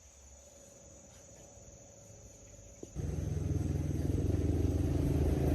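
Faint steady insect chirping, then about three seconds in a diesel engine comes in abruptly, loud and running steadily with a fast, even beat.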